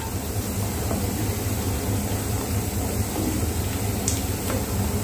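Sliced chicken sausage frying in shallow oil in a nonstick pan, a steady sizzle over a low, even hum, the pieces browned and done. A wooden spoon taps lightly in the pan about four seconds in.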